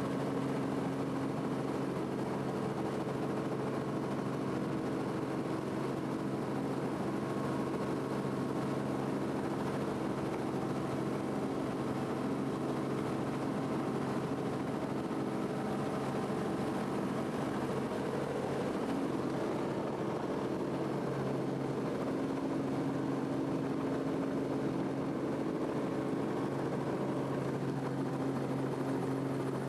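Robinson R44 helicopter heard from inside the cabin: the steady drone of its main rotor and six-cylinder Lycoming piston engine running, an even hum with several constant tones and no change in level.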